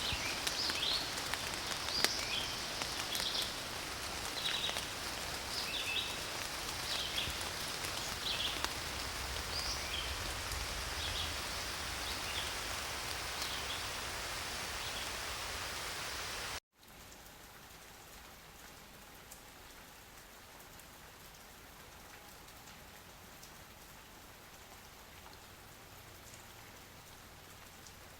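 Rain falling steadily, with short high chirps over it during the first several seconds. About two-thirds of the way through it cuts abruptly to a softer, quieter, even rain.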